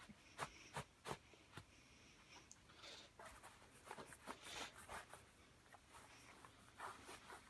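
Faint rustling and scattered light clicks of a paracord belt being threaded through trouser belt loops and handled.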